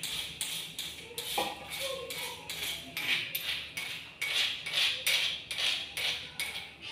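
Chillies being ground by hand with a pestle in a mortar: rhythmic scraping strokes, about three a second.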